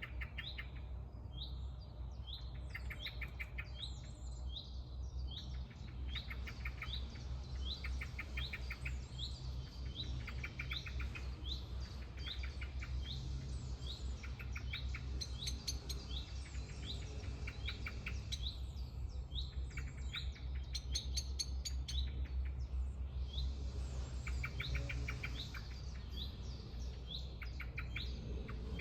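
Songbirds chirping: one bird repeats a short, rising call over and over, about once a second, while fast rattling trills come in between, over a steady low rumble.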